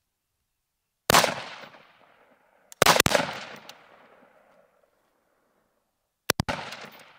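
Rifle shots on a range: sharp reports in three groups, about a second in, around three seconds in and just after six seconds, the last two each made of quick close strikes, every group trailing off in a ringing echo.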